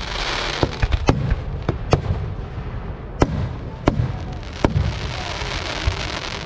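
Aerial firework shells bursting: about eight sharp bangs at uneven intervals over a constant crackling hiss, which thickens near the start and again in the last second and a half.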